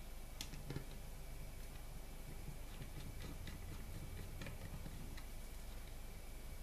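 Small screwdriver working a tiny screw on a metal laptop HDD caddy, fitting its mounting bracket: two sharp metallic clicks about half a second in, then light scattered ticks.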